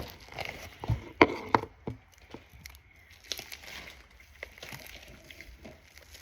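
Foam-bead slime being worked in a bowl: a few sharp clicks and knocks in the first two seconds, then quieter scattered crackles.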